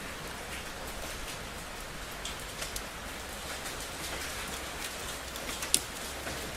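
Steady rain falling, with many separate drops ticking on a surface; one sharp, louder drop near the end.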